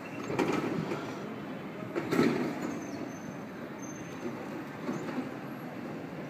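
Snowboard grinding down a metal handrail, a scraping rumble with two louder hits about half a second and two seconds in, played through a television's speaker.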